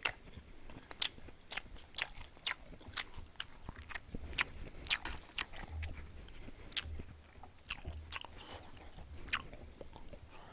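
Close-miked chewing: a person eating with wet mouth clicks and smacks, irregular, roughly two a second.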